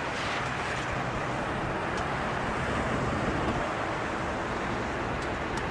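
Jet engines of a Boeing 757-200 running with a steady, even rushing noise over a low rumble.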